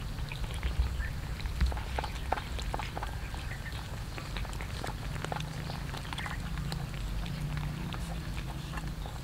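Several cats eating rice mixed with fish: irregular quick chewing and smacking clicks, the loudest about a second and a half in.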